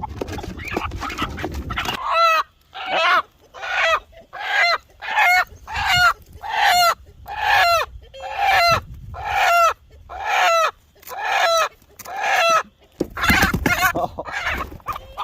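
Chicken squawking in distress while held to have its wing feathers clipped: about fourteen loud, harsh calls in a steady run, a little more than one a second. Rough scuffling noise comes at the start and again near the end.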